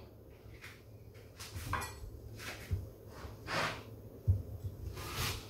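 Light kitchen handling sounds: an onion lifted out of a plastic bowl and a kitchen knife picked up off a wooden chopping board, with a few scattered soft knocks and rustles, one duller knock a little past the middle.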